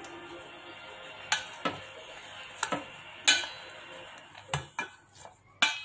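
Utensil clinking against a stainless steel bowl while stirring potato sticks into seasoned flour batter: about eight sharp, irregular clinks with a short metallic ring, starting about a second in.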